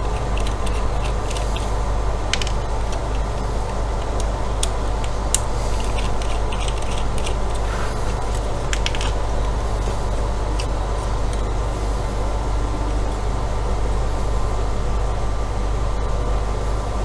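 A steady low background drone, with scattered light clicks and taps of tools and small parts being handled while a router is unscrewed and taken apart; the clicks thin out after about ten seconds.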